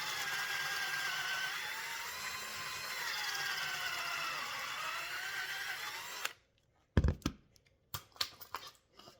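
Cordless drill boring a pocket hole in plywood through a pocket-hole jig, its motor whine wavering in pitch as it runs on a nearly dead battery, then stopping about six seconds in. A loud knock follows, then a few sharp clicks as the tool and workpiece are handled.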